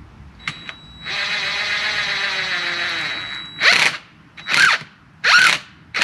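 Cordless drill driving a screw into a branch perch. It gives one continuous run of about two seconds, with the motor pitch sagging as it slows under load, then four or five short trigger bursts as the screw is snugged down.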